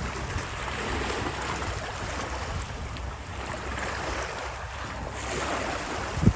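Small waves washing against a rocky pebble shore, with wind buffeting the microphone in a low rumble. A single sharp thump near the end.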